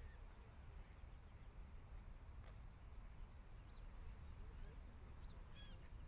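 Faint, scattered calls from a resting flock of mallard ducks and other birds, a few short high calls coming mostly in the second half, over a low steady rumble.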